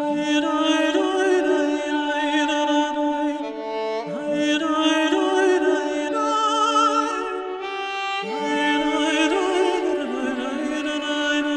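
Background music: a melody of sustained notes with vibrato over a drone, changing note every second or two.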